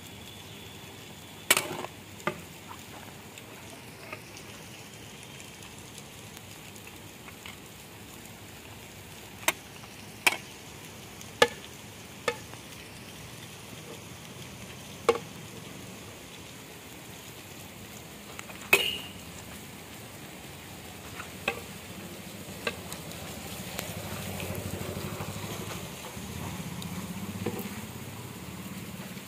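A large metal ladle stirring rice in a big metal cooking pot (degh), the ladle knocking against the pot with sharp clinks about ten times at irregular intervals, over a steady low hiss of the steaming pot.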